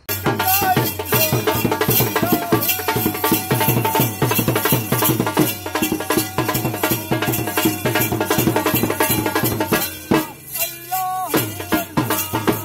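Background music with a fast, rattling shaker-like beat under a held melody; the beat eases off for about a second near the end.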